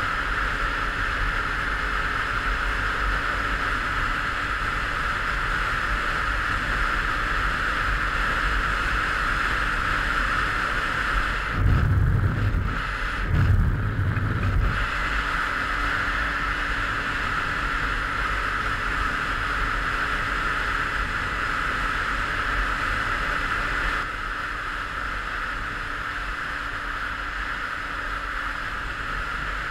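Derbi Senda Xtreme 50's 50cc two-stroke engine running steadily at road speed, mixed with wind rush on a helmet-mounted camera. About twelve seconds in, two heavy gusts of wind buffeting on the microphone last a few seconds. The sound drops a little in level about four-fifths of the way through.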